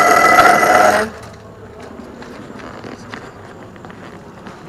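Metal dumpster-enclosure gate giving a loud screech, several high tones at once, that cuts off abruptly about a second in. Quieter scuffing follows.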